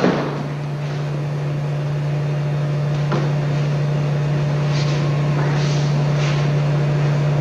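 A steady low hum runs throughout, the loudest thing present. Over it come a few faint soft sounds from people moving on the training mat, about three seconds in and again around five to six seconds in.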